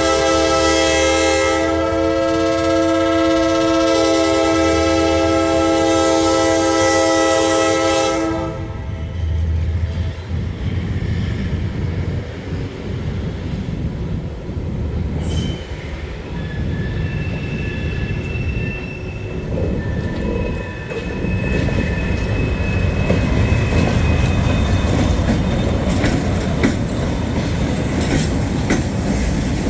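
Diesel freight locomotive's multi-chime air horn sounding loudly, cutting off about eight seconds in. The diesel engine then keeps working under load as it pulls freight cars, with faint wheel squeals and a run of clacking from wheels over the rails near the end.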